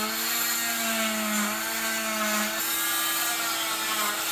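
Oscillating cast saw, whose blade vibrates back and forth rather than spinning, running steadily as it cuts through a cast. It gives a buzzing whine whose pitch wavers slightly as the blade bears on the cast.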